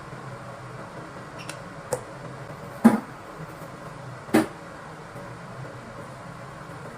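A few sharp knocks over a steady low background hum: two light ones, a loud one about three seconds in, and another about a second and a half after it.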